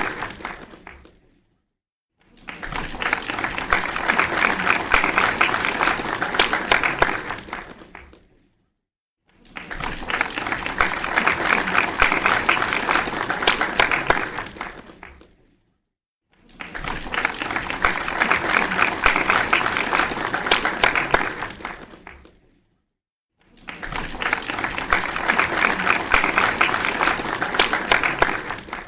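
Crowd applause, many hands clapping, in repeated bursts of about six seconds that swell up and fade out, each followed by about a second of silence.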